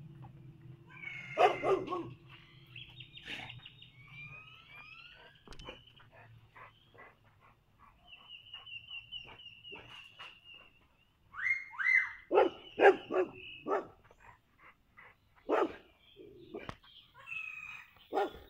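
Dog barking in short bouts, loudest about a second and a half in and again in a string of barks after about twelve seconds, with birds chirping and trilling between the barks.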